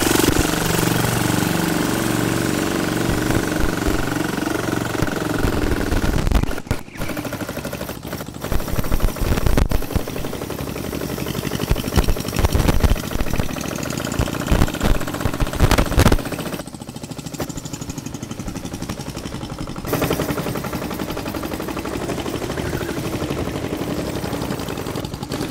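Homemade go-kart running, its motor giving a rapid rattling pulse. A pitched drone fades over the first several seconds, and sharp louder knocks come in the middle.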